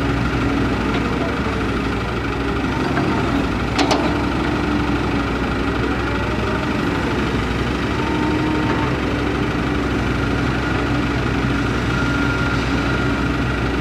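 Kobelco excavator's diesel engine running steadily, with higher whines coming and going. A short knock sounds a little under four seconds in.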